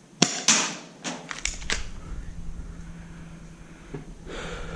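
A quick run of sharp clicks and knocks over the first two seconds, the loudest about half a second in, then a steady low hum with a short rush of noise near the end.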